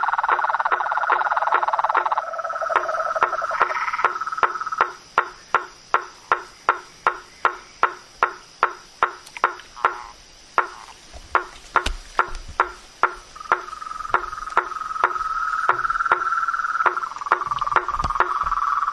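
Frogs calling: a steady series of short knocking calls, about two or three a second, over a trilling chorus. The trilling fades out about five seconds in and returns in the second half.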